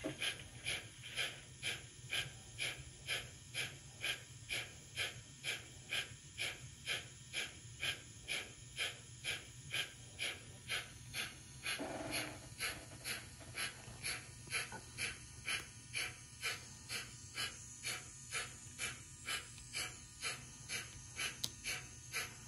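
Sound decoder of an EKR Adams 415 radial tank locomotive model playing steam exhaust chuffs in an even rhythm, a little over two beats a second, as the model runs on a rolling road. A steady low hum lies underneath, and a short lower sound comes about halfway through.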